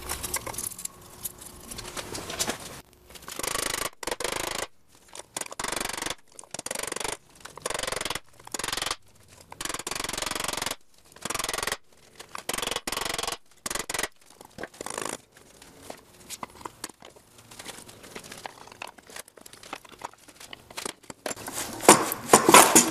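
Repeated short bursts of scraping and rasping, stopping and starting many times, loudest near the end.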